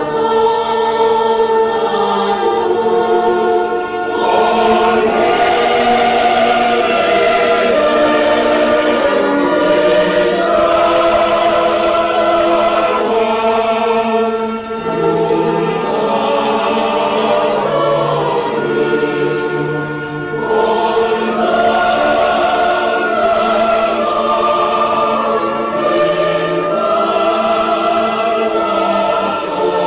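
Choral music: a choir singing slow, long held chords in phrases of several seconds each.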